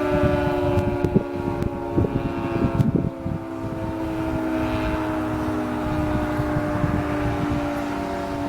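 Federal Signal 2T22 dual-tone outdoor warning siren sounding a steady tone, the Alert signal for tornado warnings, with a second siren, a Thunderbolt 1000T, also sounding. Low thumps in the first three seconds.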